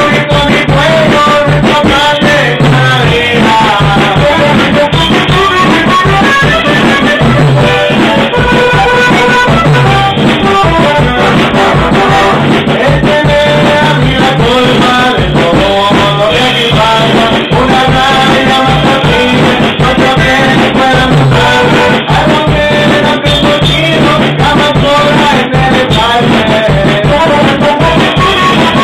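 A small band playing an instrumental passage: an accordion carrying the melody over a strummed acoustic guitar and an electric bass guitar.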